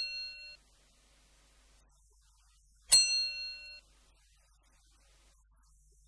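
A bright bell-like chime rings out twice, each strike fading within about a second. The first is already dying away at the start, and the second comes about three seconds in.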